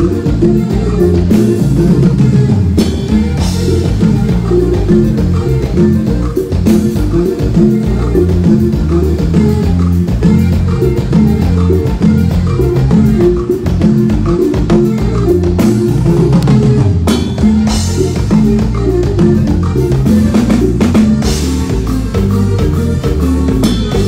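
Live band playing loud dance music with a steady beat, heavy on bass and drums.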